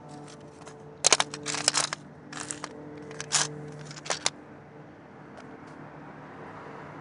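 Hard rough stones clicking and clinking against each other and the tray as they are handled, in quick clusters that are loudest a little after a second in and stop about four seconds in.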